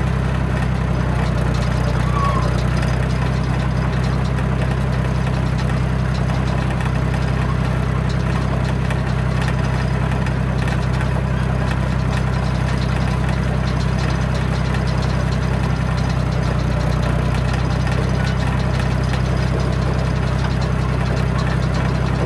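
John Deere crawler dozer's diesel engine running at a steady speed as the machine travels, with a constant fine clatter over the engine's low note.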